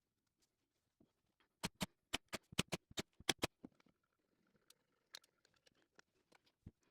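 Small wooden pieces clicking and tapping as they are handled and set in place: a quick run of about ten sharp taps from about one and a half to three and a half seconds in, then a few fainter scattered ticks.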